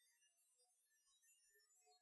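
Near silence, with only faint scattered short tones.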